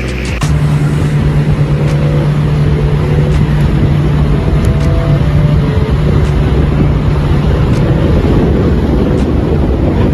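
Vehicle engine running steadily, a constant low hum under a wash of noise, coming in about half a second in.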